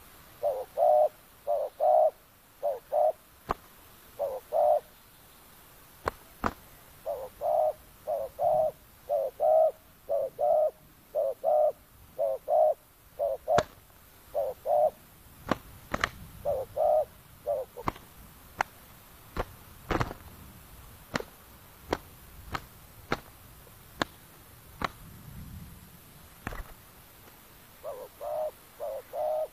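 Spotted doves cooing: phrases of two to four low, soft notes repeated over and over with short pauses. Through the middle stretch the cooing thins out and sharp clicks come in between the phrases, one every second or so, while the two doves fight.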